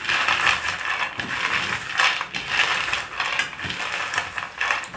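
Dry-roasted peanuts rubbed and rattled together between two hands on a plate: a dense crackling clatter of many small clicks as the papery red skins loosen and come away from the nuts.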